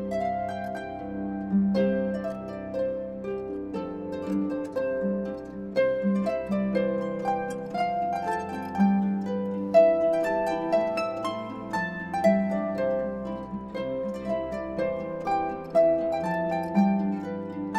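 Background music of plucked-string melody, harp-like, over sustained low notes, with a gentle, even pulse of notes.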